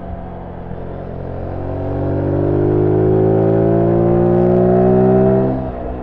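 Zontes U1 125 single-cylinder motorcycle engine with its stock exhaust, heard from the rider's seat. It pulls under throttle, rising steadily in pitch and getting louder from about a second in, then drops back suddenly near the end.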